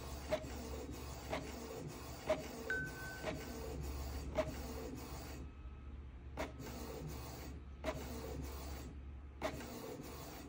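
Canon TR4700-series inkjet printer printing a page: a steady mechanical running sound from the print head and paper feed, with a sharp click about once a second as the paper advances.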